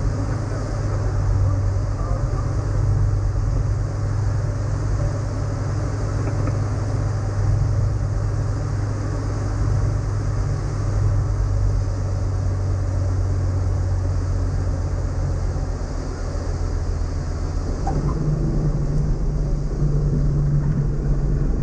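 Cockpit sound of a Diamond DA20-A1 Katana's Rotax 912 S four-cylinder engine and propeller running throttled back for landing, a steady drone. Its pitch steps up about eighteen seconds in.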